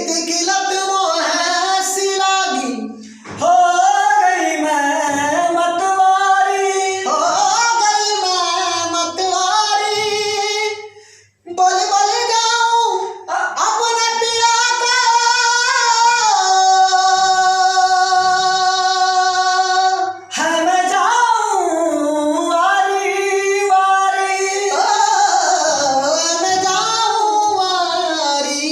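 A solo female voice sings a melody with quick ornamented runs and a long steady held note around the middle, pausing briefly for breath twice. No instruments are audible.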